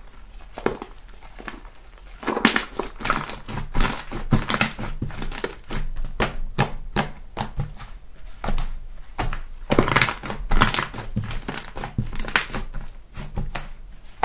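Slime being squished and pressed by hand, making irregular sticky clicks and crackling pops. Quieter at first, then denser and louder from about two seconds in.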